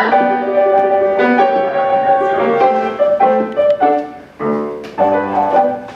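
Upright piano playing a lively instrumental passage, steady notes and chords changing every fraction of a second.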